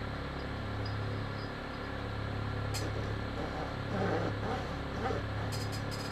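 Small hand saw cutting through a plastic head peg, with faint rasping strokes about two a second in the second half, over a steady low hum; a sharp click near the middle.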